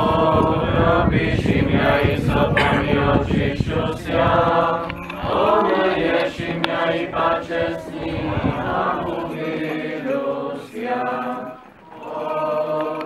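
Several voices singing Byzantine-rite liturgical chant in unison, with a low rumble under the singing for the first few seconds.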